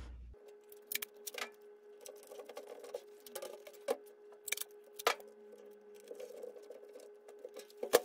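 Hands handling a plastic box fan and pressing duct tape onto its corners: scattered light clicks and crinkles of plastic and tape, over a faint steady hum.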